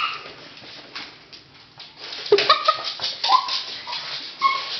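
An excited dog whining in three short high bursts, with clicks and scuffles of movement that pick up about two seconds in after a quieter stretch.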